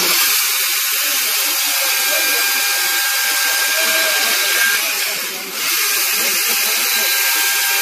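Husqvarna 536LiXP battery chainsaw with its brushless motor, set to eco mode, cutting through a log: a steady high-pitched whine of motor and chain in the wood. The sound eases briefly about five seconds in, then the saw bites again.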